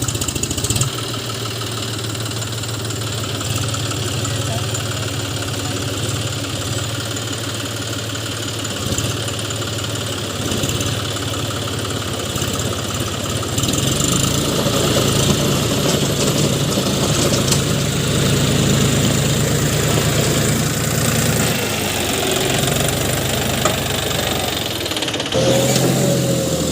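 John Deere tractor's diesel engine running steadily, getting louder about halfway in.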